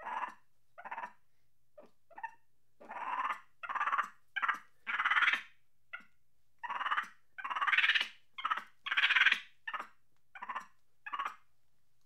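A monkey chattering angrily: an irregular string of short calls, with the longest and loudest calls coming from about five seconds in.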